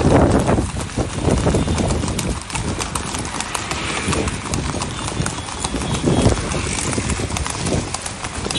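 Hooves of several horses clip-clopping on a paved road, many uneven, overlapping hoofbeats.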